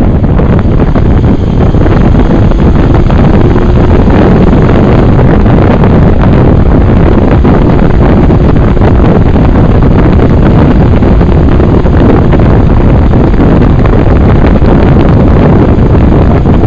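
Loud, steady wind noise on the microphone of a camera mounted low on a motorcycle at road speed, mixed with the bike's running and road noise.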